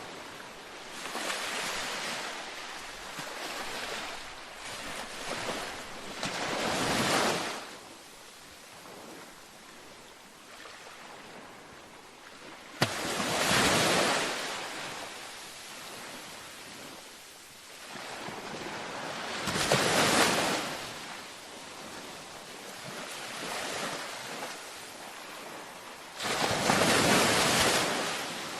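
Ocean waves breaking and washing up a beach, one surge of surf about every six to seven seconds, each swelling and fading away. One wave starts with a sharp click about thirteen seconds in.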